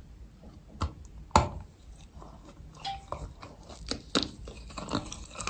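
Chalk being bitten and crunched between teeth: a few sharp snaps, the loudest about a second and a half in, among smaller crunching crackles.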